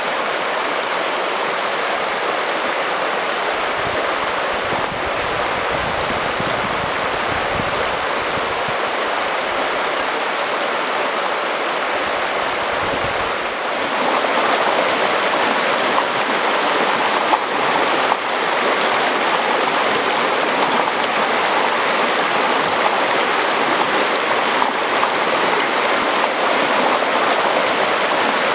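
Shallow mountain creek rushing steadily over a rocky bed. It gets a little louder about halfway through.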